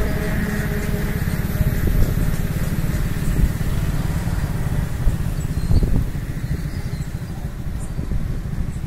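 Road and engine noise heard from inside a moving car: a steady low rumble that eases off a little after about six seconds.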